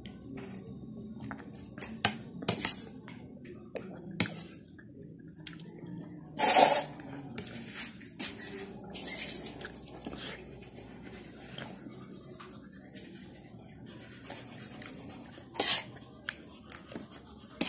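A person eating with a spoon: scattered clinks and scrapes of the spoon on the plate, with chewing and mouth noises. A louder noisy burst comes about six and a half seconds in, and a shorter one near the end.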